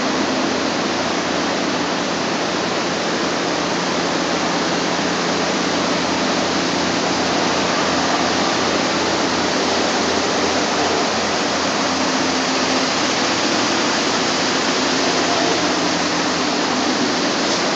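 Steady, loud rushing noise with no breaks, like moving air, with a faint low hum underneath.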